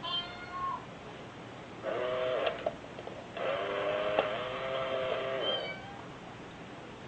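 A domestic cat gives a short, higher meow, then two drawn-out low yowls, the second lasting about two seconds.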